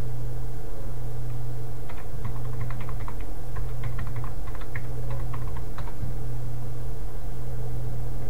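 Computer keyboard typing: a quick run of keystrokes lasting about four seconds as a password is entered, over a steady low hum.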